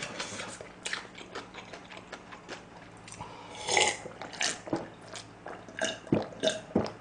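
A man drinking from a drink can: faint mouth clicks at first, then a sip a little over halfway through followed by a run of gulps.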